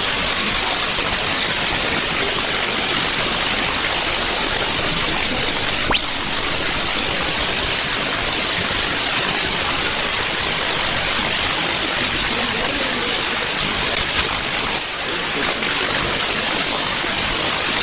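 Steady shortwave static hiss from an SDR receiver tuned to 6190 kHz, with the weak broadcast signal buried in the noise. A single click comes about six seconds in.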